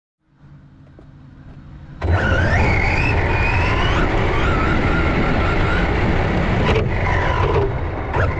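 Cen Racing Ford Puma RC rally car's electric motor and drivetrain, heard from a camera mounted on the car. It is quiet at first, then about two seconds in the car accelerates hard: a whine rises in pitch over loud tyre and road rumble from rough pavement. The whine falls as the car slows near the end.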